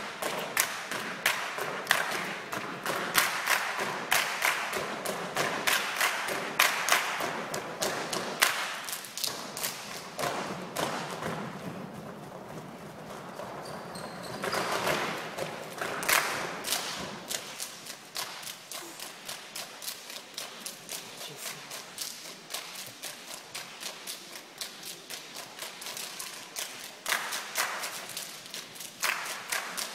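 Rapid, irregular sharp taps and thuds from a troupe of dancers performing on a stage. They are louder through the first ten seconds or so and again about halfway, and lighter later.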